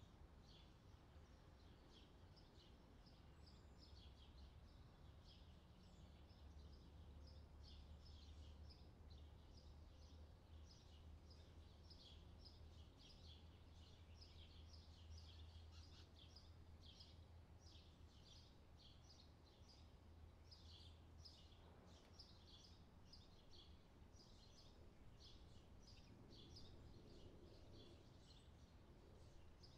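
Faint birds chirping, many quick high chirps overlapping, over a low steady rumble that fades about two-thirds of the way in.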